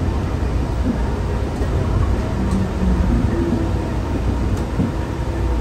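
Bombardier Innovia APM 300 people mover running on its rubber tyres along a concrete guideway, heard from inside the car as a steady low rumble.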